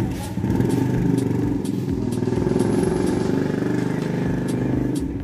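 An engine running steadily close by.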